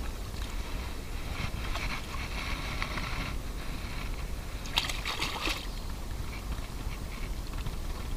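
Hooked fish splashing and thrashing at the water's surface as it is drawn in to the bank: a couple of seconds of splashing from about a second in, then a shorter, sharper burst of splashing about five seconds in.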